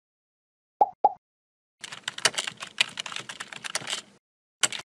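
Computer keyboard typing sound effect: a rapid run of key clicks lasting about two seconds, preceded by two short pitched pops about a second in, with one more short click near the end.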